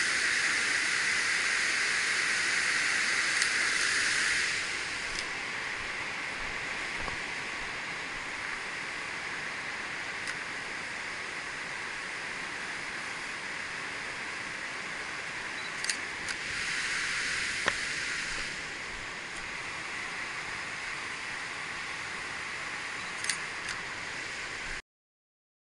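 Discharge water spilling over the low concrete sub-dam weir below a dam, a steady rushing hiss that drops to a fainter background after about four and a half seconds. A few sharp single camera-shutter clicks from a Canon DSLR come at intervals. The sound cuts off abruptly near the end.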